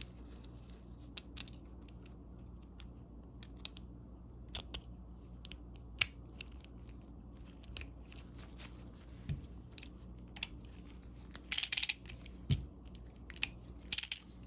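Small steel parts of a vintage Walden roundhead ratchet clicking and clinking as the reversing switch is fitted into the head over the pawls: scattered light ticks, then two short bursts of sharper metallic clinks near the end.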